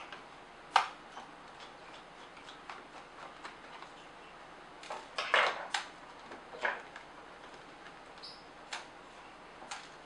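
Irregular clicks and light knocks of a Nikon SB900 flash's plastic housing being worked apart by hand, with a screwdriver against the case. One sharp click comes about a second in, and a quick run of louder clicks a little past halfway.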